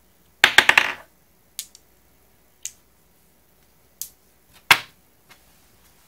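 Sharp metallic clicks from a TEC Accessories Orbiter magnetic fidget toy as its steel ball is handled on the metal base and the toy is set down on a countertop. There is a quick run of about five clicks about half a second in, then single clicks roughly a second apart, the loudest near the end.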